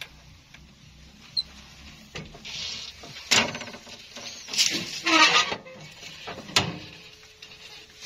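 A few sharp metallic knocks and clicks from work on a truck's clutch assembly, with a short squeal whose pitch wavers, the loudest sound, about five seconds in.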